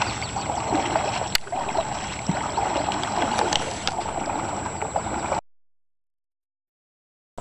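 Double-bladed paddle strokes splashing and dripping in the water beside a small boat, with one sharp knock a little over a second in. The sound cuts off suddenly to silence near the end.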